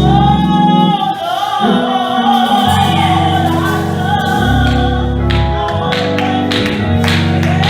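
Live gospel praise music: singing that draws out long, bending notes over steady bass accompaniment.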